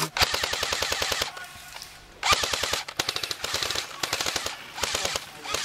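Airsoft electric rifles firing full-auto: a run of rapid shots lasting about a second, then several shorter bursts about half a second each.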